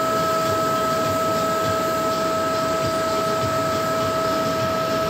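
Electric blower fan of an inflatable bouncy castle running, a steady drone with a constant whine over it.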